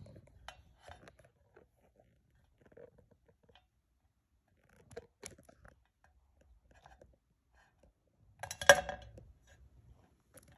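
Hard plastic dinosaur toy figures clicking and knocking against each other and the tray in scattered small taps, with a louder clatter about eight and a half seconds in.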